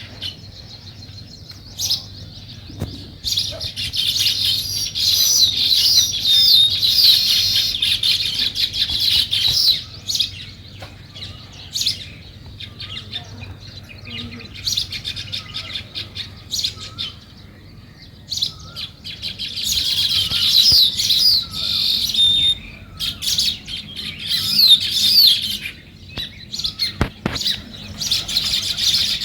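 House sparrows chirping: loud bouts of rapid, overlapping chirps, with quieter stretches of scattered single chirps between them.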